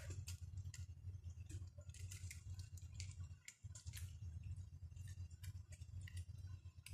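Faint scattered clicks and scratches of a kitten's claws gripping tree bark as it climbs, over a steady low hum.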